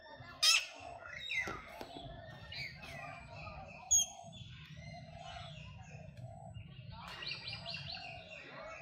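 Shrill chirping animal calls: a couple of loud rising-and-falling squeals in the first two seconds, a short piping note about four seconds in, and a quick run of repeated chirps near the end.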